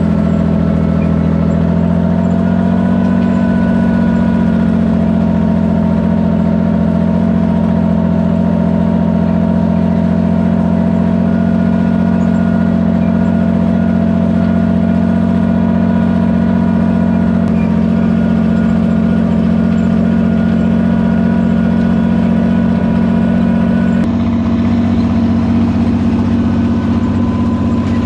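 Farmall 460 tractor engine running steadily at idle, with a sudden change in its tone about three quarters of the way through.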